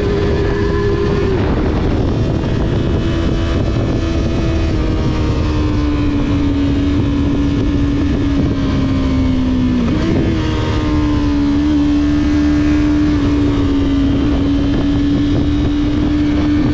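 Sport motorcycle engine heard from the bike itself, running at fairly steady revs with a slowly falling pitch, a sudden change in engine note about a second in and a quick dip then jump in pitch about ten seconds in, as the throttle or gear changes. A steady rush of wind noise lies underneath.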